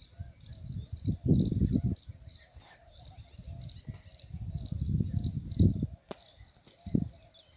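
Insects and birds chirping in the background, with irregular low rumbles that swell and fade, loudest about five seconds in.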